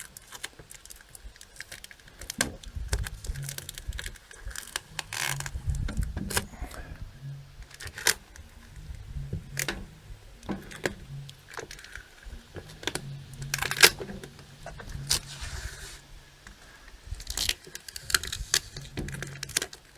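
Masking being peeled and pulled off a freshly spray-painted microwave case: irregular tearing, crackling and scraping with scattered clicks and knocks of handling.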